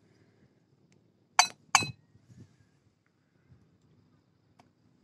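Two short, ringing clinks about a third of a second apart.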